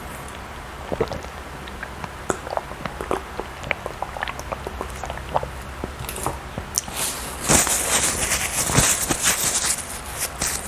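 Close-miked eating sounds: scattered wet mouth clicks of chewing soft food, then a denser, louder stretch of crackling from about seven to ten seconds in.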